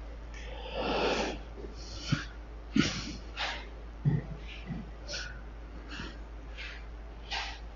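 Breaths and rustles close to a head-worn microphone, heard as short hissy puffs. A few soft knocks come about two to four seconds in as objects are handled.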